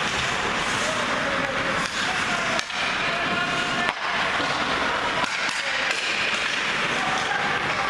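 Ice hockey play: skates scraping on the ice and several sharp clacks of sticks and puck, over a steady hiss.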